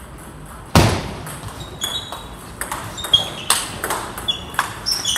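Table tennis rally: the plastic ball clicks off the rackets and bounces on the table several times a second, with one loud thump about three quarters of a second in.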